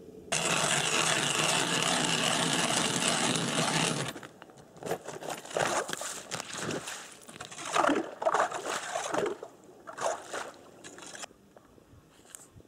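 A steady rushing noise for about four seconds that starts and cuts off suddenly, then irregular scraping and splashing of line, bait and slush being pulled from an ice-fishing hole at a tip-up.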